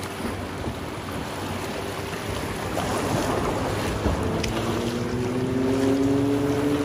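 River water rushing and splashing around a kayak's hull as it runs through a shallow riffle, with wind buffeting the microphone. A faint held tone, slowly rising, comes in about four seconds in.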